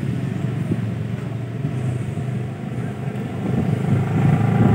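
A motorcycle engine running nearby, growing louder near the end.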